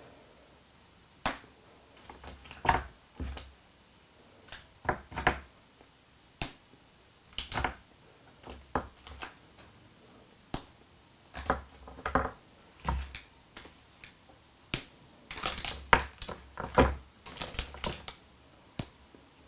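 Ritter Sport mini chocolate bars being unwrapped and broken by hand: irregular crinkles of the foil wrappers and sharp snaps of the chocolate squares, coming thicker near the end.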